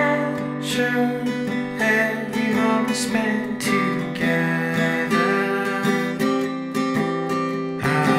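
Indie song music: acoustic guitar strumming through an instrumental passage, with no singing.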